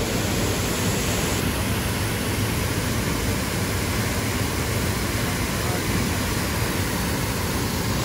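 Steady rush of water pouring over a small river weir.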